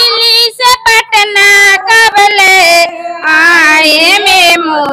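Women's voices chanting a protest slogan loudly in a high, drawn-out sing-song, in short phrases with brief breaks between them.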